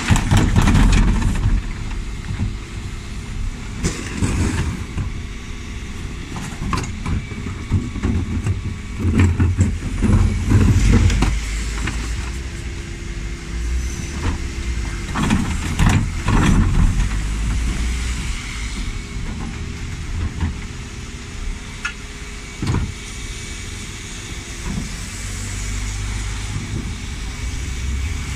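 Dennis Elite 6 refuse truck's diesel engine running while its Terberg TA-DE bin lift raises, tips and lowers two wheelie bins. Repeated loud clattering and banging bursts come from the bins and lift as they are emptied, with a single sharp knock near the end.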